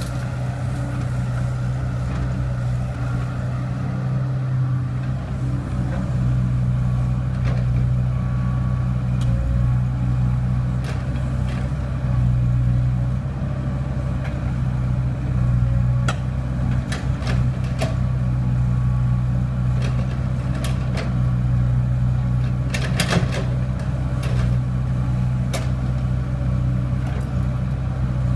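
Excavator's diesel engine running steadily under load while it digs soil and loads a dump truck, with scattered sharp clanks and knocks in the second half, the loudest group near the end.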